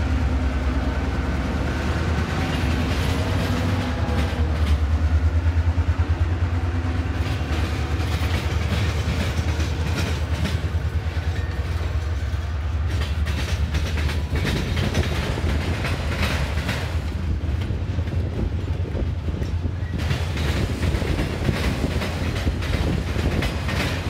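Diesel freight locomotive passing close by, its engine hum and steady tones strong for the first several seconds. Then freight cars roll past, their wheels clicking in a quick irregular rhythm over the rail joints.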